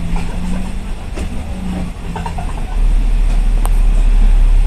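Inside a moving city bus: engine and road noise with an on-and-off hum, then a deep rumble that gets much louder about three seconds in.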